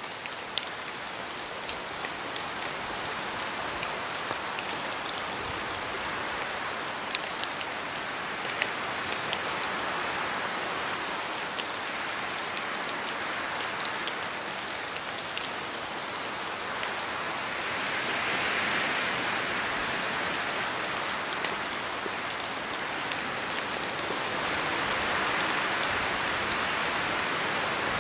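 Steady rain falling, an even hiss with scattered sharp ticks of individual drops striking nearby surfaces; the hiss swells louder twice in the second half.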